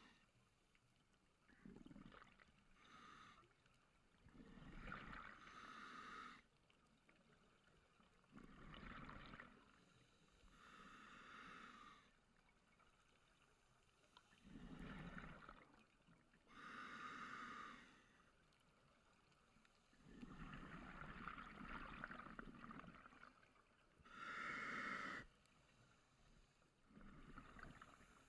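Scuba regulator breathing underwater: a higher rushing inhalation through the demand valve alternates with lower, bubbling exhalations, in slow, even breaths about every four to five seconds.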